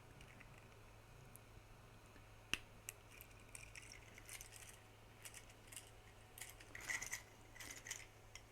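Faint clicks and taps of hard 3D-printed plastic parts being handled and fitted together as the tail goes into the articulated warthog figure. There is one sharper click about two and a half seconds in and a cluster of small clicks near seven seconds, over a low steady hum.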